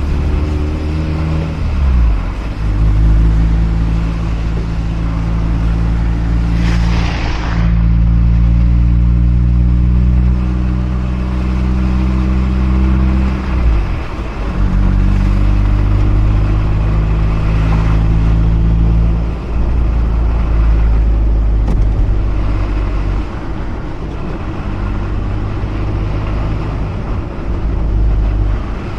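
Mazda RX-8's rotary engine running under way, a steady low drone whose pitch drops sharply about two seconds in, again about fourteen seconds in and once more near twenty seconds. A short whoosh comes about seven seconds in.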